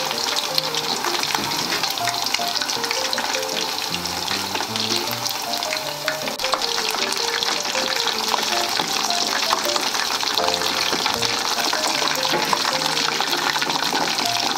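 Karaage deep-frying in a pot of hot oil: a steady, dense crackle and sizzle, with soft background music playing a simple melody underneath.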